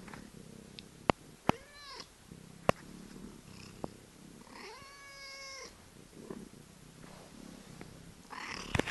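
Norwegian forest cat purring steadily while being stroked, giving a short chirping call about two seconds in and a longer meow about five seconds in. Scattered sharp clicks and a rustle near the end come from the phone being handled against the cat's fur.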